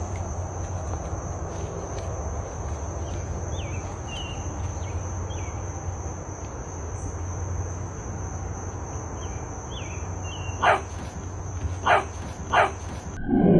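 A dog barks three times near the end, short sharp barks a second or less apart, over a steady hiss with a thin, steady high-pitched tone and a few faint chirps.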